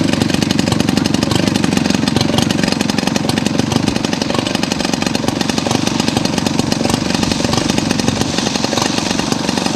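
Radio-controlled scale model aircraft's piston engine running steadily, with a fast, even firing rhythm.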